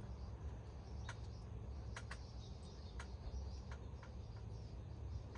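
Hummingbird giving short, sharp chip notes, irregularly spaced about a second apart, over a steady low rumble.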